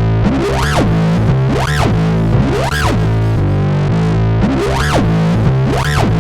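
Distorted sawtooth synth bass playing a looping low bass line, its filter sweeping up and back down about once a second for a rising-and-falling wah. One stretch in the middle holds a note without the sweep.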